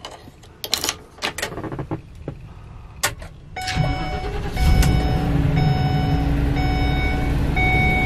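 A key goes into the ignition and turns with a few sharp clicks. About four and a half seconds in, the Ford box truck's engine cranks, catches and settles into a steady idle. A dashboard warning chime beeps at an even pace, about one and a half times a second.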